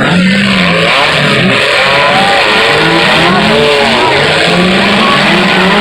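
Several demolition derby cars' engines revving hard, their pitches rising and falling over one another.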